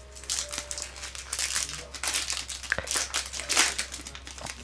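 Wrapper of a Topps Chrome basketball card pack crinkling as it is opened by hand, in a run of crackly rustles, loudest about one and a half and three and a half seconds in.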